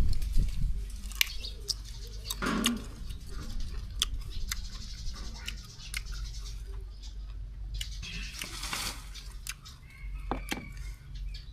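Close-up eating sounds: crunching and mouth clicks of chewing, with a bird calling in the background.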